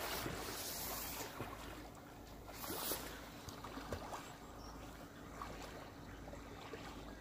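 Soft splashing and lapping of water from a swimmer's head-up breaststroke, over a steady low outdoor rumble.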